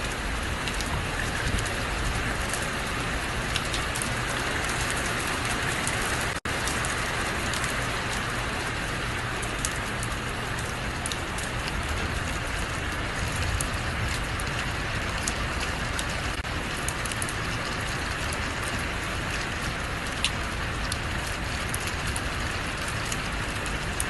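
Steady rain falling and pattering on surfaces, with many small drop ticks and a low rumble underneath. The sound cuts out for an instant about six seconds in.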